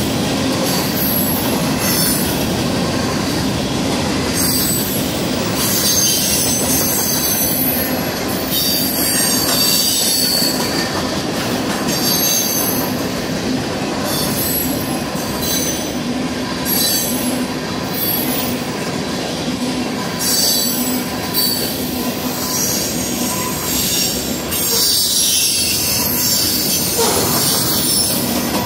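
Cars of a Union Pacific mixed freight train rolling past: a steady rumble of steel wheels on rail, with high-pitched wheel squeal that flares up and fades every few seconds.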